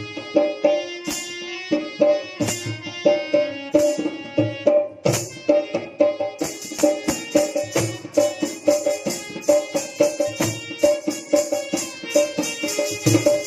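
Harmonium playing a melody over a hand drum's steady beat, with no singing. A bright metallic jingling joins about six seconds in.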